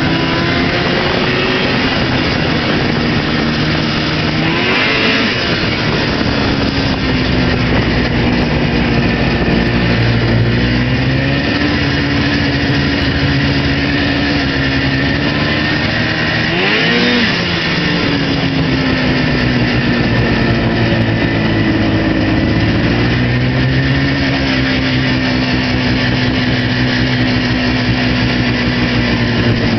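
Arctic Cat Pantera snowmobile engine running under way, its pitch holding fairly steady but dipping twice, about five seconds in and again about seventeen seconds in, as the revs drop and climb back up.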